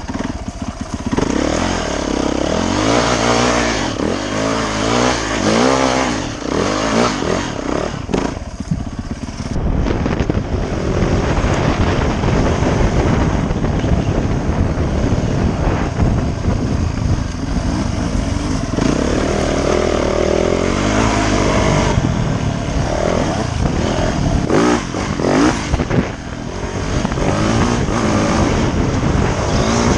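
Dirt bike engine being ridden, revving up and falling back again and again as it is throttled and shifted through the gears.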